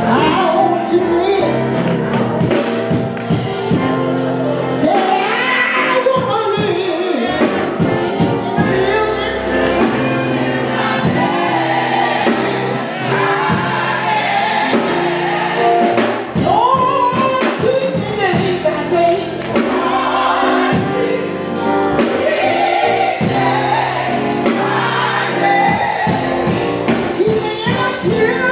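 Live gospel music: group singing over keyboard accompaniment, continuing without a break.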